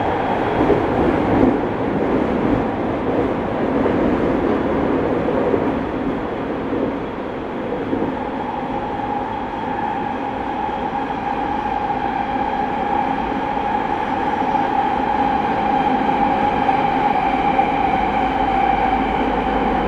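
Interior running sound of a Tokyo Waterfront Area Rapid Transit 70-000 series electric train in motion: a steady rumble and hiss from wheels and running gear, with a steady whine that grows stronger about eight seconds in.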